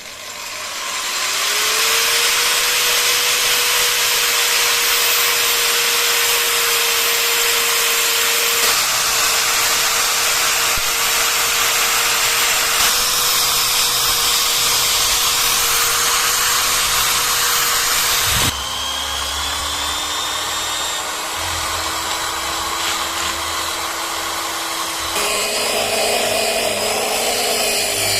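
Electric power tool spinning up about a second in, then running steadily with a harsh hiss from its work. About two-thirds through its pitch drops suddenly and creeps back up slowly, then jumps higher again near the end.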